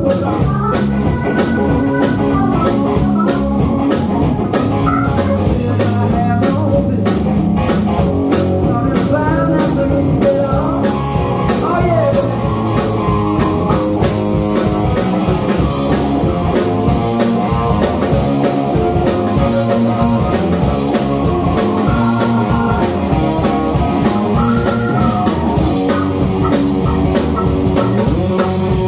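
Live blues-rock band playing: electric guitar, electric bass, drum kit and keyboard together at a steady, loud level.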